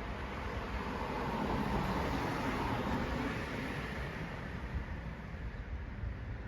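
Steady low rumbling noise with no distinct events, rising a little in level about a second or two in and easing off again toward the end.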